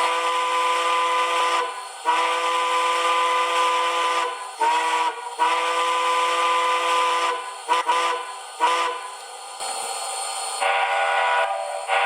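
Recorded steam locomotive chime whistle from a TCS WOW Sound model-railroad decoder, played through the model's small speaker with no bass: long blasts, then several short toots, a brief steam hiss, and a different-sounding whistle near the end.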